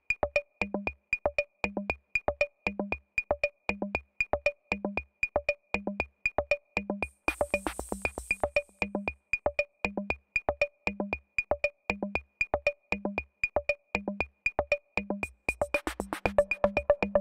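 Drum machine rhythm as background music: a steady pattern of short ticking hits at about four a second over a recurring lower drum. A hissing cymbal-like wash comes in briefly just before the middle, and the pattern gets busier near the end.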